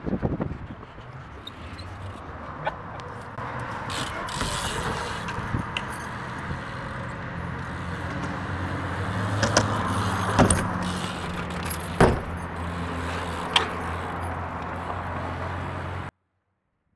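BMX bike riding a concrete skatepark: a steady rolling hum of tyres on concrete that grows louder, broken by several sharp knocks from landings and hits on the ramps, the loudest about three-quarters of the way through. The sound cuts off abruptly near the end.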